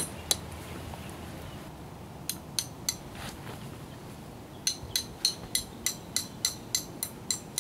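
Metal tent stake being tapped into the ground with a hard tool, metal striking metal: three sharp clinks about two seconds in, then a quick, even run of ringing metallic taps, about three a second, over the last three seconds.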